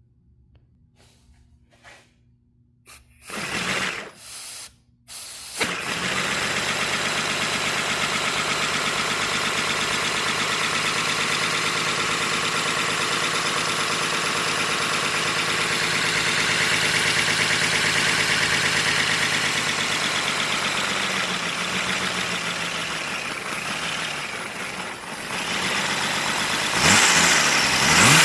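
A few clicks and short puffs of air, then from about six seconds in a 3D-printed inline-six model engine runs on compressed air: a steady hiss of air with a rapid, even mechanical beat. Near the end it gets louder and its pitch rises as it speeds up.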